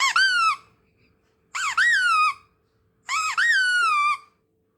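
Three high-pitched squeaky calls about a second and a half apart, each jumping up in pitch and then sliding down.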